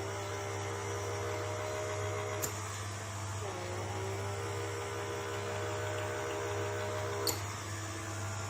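Handheld pore vacuum running with a whine that slides down in pitch as it starts, holds steady, then stops with a sharp click, twice, over a constant low hum.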